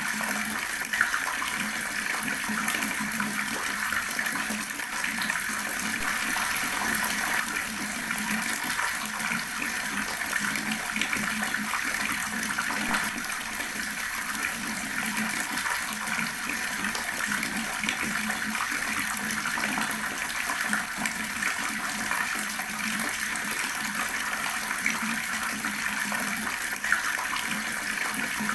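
Water running steadily from a tap in a constant splashing stream, with a brief sharper splash about a second in and again near the end.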